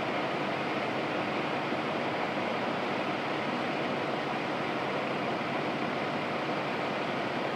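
A fire engine's diesel engine idling nearby: a steady, unchanging rumble.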